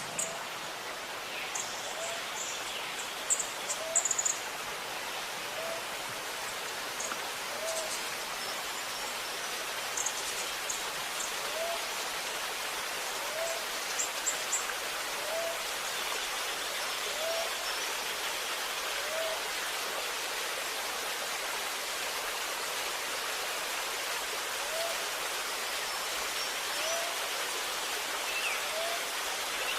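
Running, gurgling water makes a steady rush. Birds give short high chirps in the first half, and a short low call repeats every one to two seconds.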